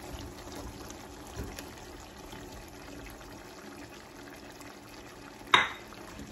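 Parboiled papaya chunks and their turmeric-tinted cooking liquid poured from a bowl into a pan of chicken curry, with a low, steady trickle. A single sharp clink sounds about five and a half seconds in.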